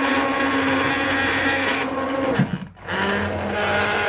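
Electric blender running steadily as it purées cooked vegetable soup. About two-thirds through, the motor briefly winds down and cuts out, then runs again at a slightly lower pitch.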